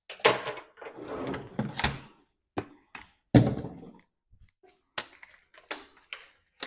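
Things being handled and moved about in a cupboard: a run of clattering knocks and rustles, with a heavier knock about three and a half seconds in.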